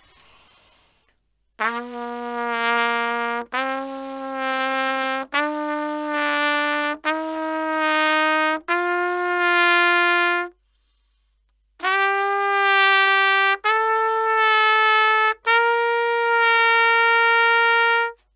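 Trumpet playing a slow rising scale of eight held notes: five, a short pause, then three more. Each note is brought down from sharp into tune so the tone relaxes and fills out, a note-bending demonstration against a sharp, diffused sound.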